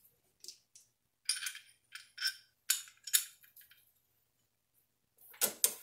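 Light metallic clinks and rattles of metal hardware being handled, in short scattered bursts, with a louder clatter near the end.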